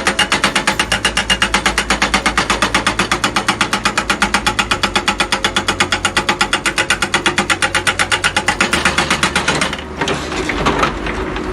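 JCB HM380 hydraulic breaker hammering in a fast, even rhythm of about ten blows a second, starting abruptly. About nine seconds in the steady blows give way to a looser, irregular clatter.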